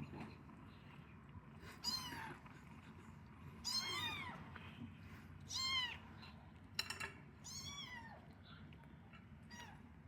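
Young kittens mewing: about six short, high-pitched calls, each rising and falling in pitch, spaced a second or two apart.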